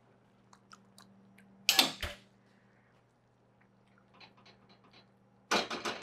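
Silicone whisk working a thick cream sauce in a skillet: a short wet clatter about two seconds in, then quick repeated strokes against the pan near the end.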